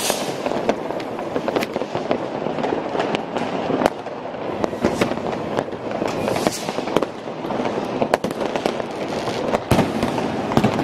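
Many fireworks going off at once: a continuous din of crackling firecrackers and exploding rockets, with sharp bangs coming several times a second.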